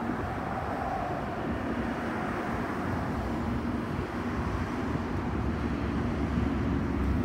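Steady low rumble of vehicle traffic, with a faint engine hum running through it.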